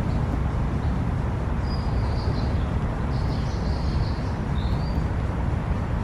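Steady low rumble of distant city traffic, with a bird giving three short, high calls in the middle.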